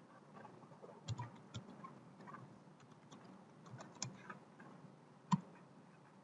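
Faint typing on a computer keyboard: a run of short, irregular key clicks, then one louder single click about five seconds in.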